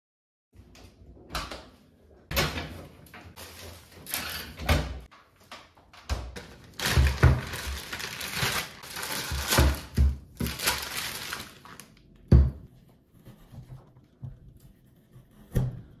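Plastic bag crinkling and rustling in bursts as a frozen rolled chicken döner is worked out of it, with two sharp thumps near the end on the cutting board.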